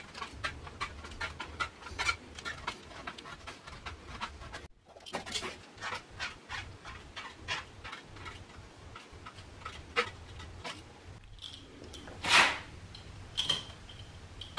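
Spline roller pressing the spline and screening into the channel of a metal screen-door frame: a quick run of small clicks and ticks. There is a short break about five seconds in, and one louder sharp sound near the end.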